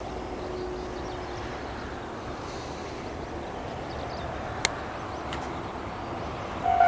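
Outdoor ambience dominated by a steady high-pitched hiss, with a single faint click about two-thirds of the way through. At the very end, the railway level crossing's electronic warning bell begins its repeating two-tone ding.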